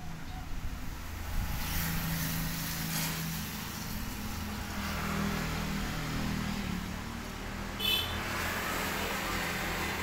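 Strong wind blowing over a steady low motor hum, with a brief high-pitched chirp about eight seconds in.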